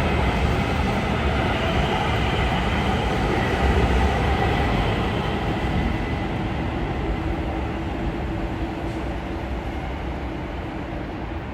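A passing train: a steady rumble with faint high, held tones over it, loudest about four seconds in and fading toward the end.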